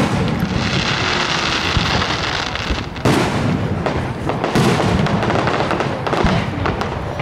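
Aerial fireworks shells bursting with sharp bangs: one right at the start, one about three seconds in and another a second and a half later, with continuous crackling between them.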